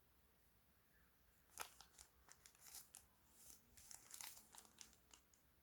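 Quiet crinkling and crackling of plastic packaging being handled, starting about a second and a half in and going on in irregular bursts.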